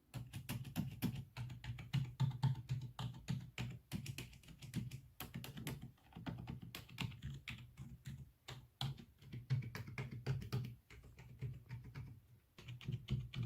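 Continuous fast typing on a quiet Redragon membrane keyboard: rapid runs of soft, muted key presses, with brief pauses about six seconds in and again near the end.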